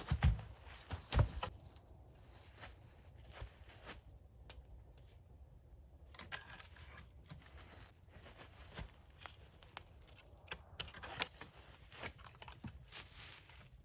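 Wood being handled during shelter building: two dull knocks about a second apart at the start, then scattered light clicks and rustling.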